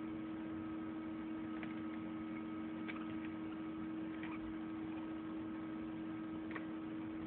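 Steady low electrical hum, with a few faint short ticks scattered through it.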